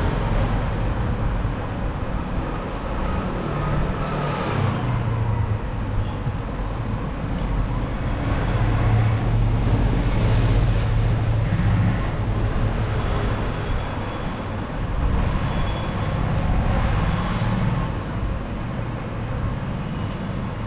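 Continuous rumble of road traffic, with vehicles swelling and fading as they pass.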